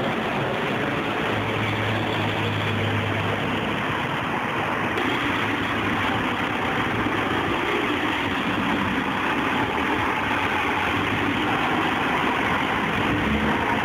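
Diesel engines of Ikarus city buses running close by in street traffic. A bus engine idles steadily, with a deeper low rumble from about one to three and a half seconds in.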